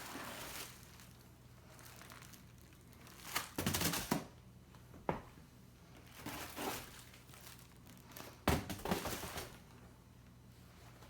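Packaging crinkling and rustling in several irregular bursts as parts are unwrapped and lifted out, with a sharp click about five seconds in.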